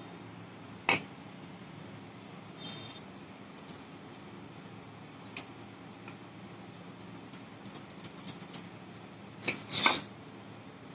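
Metal parts of a tractor starter motor's solenoid being handled and fitted by hand: a sharp metallic click about a second in, scattered small clicks and a quick run of ticks near the end, then a louder metal clatter just before the end.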